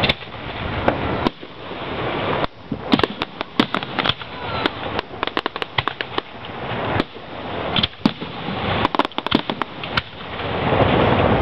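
Aerial fireworks going off: runs of sharp cracks and pops over a low rumble of booms, which grows louder near the end.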